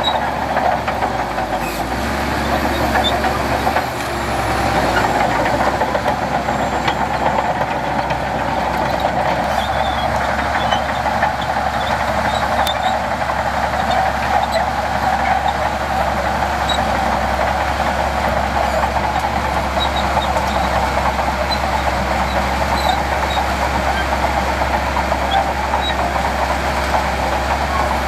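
Diesel engine of heavy earthmoving equipment running steadily, without pause.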